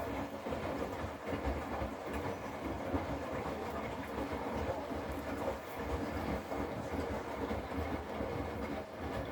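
Hotpoint Active Care washing machine spinning its drum, a steady, uneven rumble at an even level.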